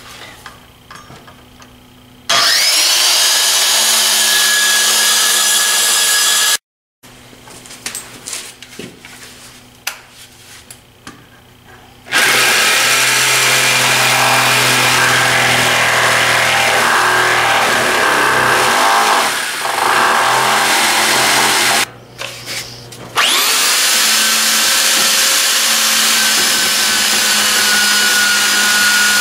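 Corded power tools working a thick pine countertop: a jigsaw cutting a notch, then an electric sander smoothing it. The motors run in three stretches of several seconds, each starting with a rising whine as the motor spins up, with quieter knocks and handling sounds between.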